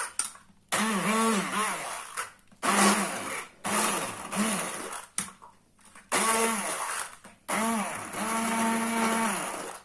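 Electric immersion (stick) blender puréeing fresh strawberries with lemon juice in a small bowl. It runs in about five short bursts with brief pauses between them, and the motor pitch dips and rises as the blade works through the fruit.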